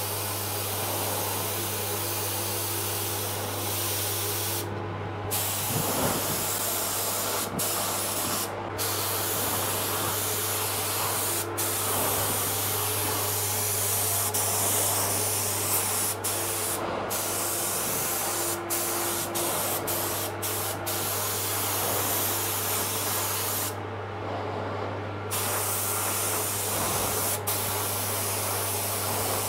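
DeVilbiss SRi Pro spray gun hissing as it lays a light dusting coat of silver paint at about 2 bar, the hiss cutting off briefly several times between passes. A steady low hum of the workshop fans runs underneath.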